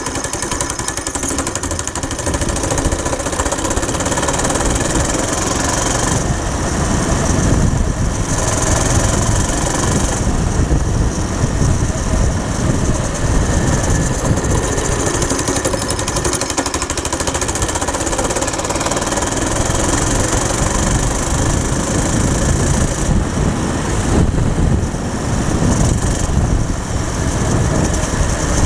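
A go-kart's small four-stroke engine running under load as the kart drives along, its sound swelling and easing slightly. The engine is bogging, which the driver suspects comes from the clutch not releasing.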